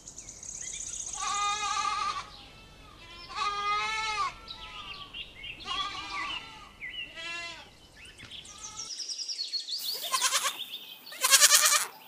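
Goats bleating: about six separate wavering bleats a second or two apart, the last two near the end louder than the rest.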